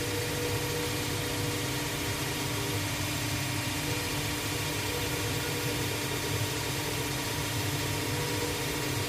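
Shoe repair finishing machine running steadily, its spindle cutter whirring as the edge of a new leather sole is held against it. The hum is constant, with one tone that drops out for about a second near the three-second mark.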